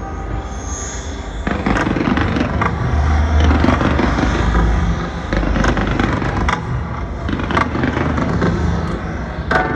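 Fireworks going off in rapid succession: a dense stream of sharp cracks and pops over a deep rumble that is heaviest a few seconds in.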